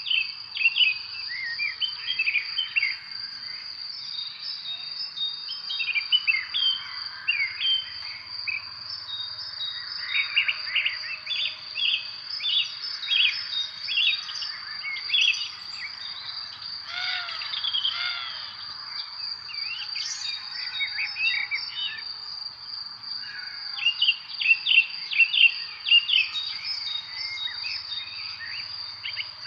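Many small birds chirping and calling in quick, overlapping phrases, busiest in bursts in the middle and near the end, over a steady, unbroken, high-pitched insect drone.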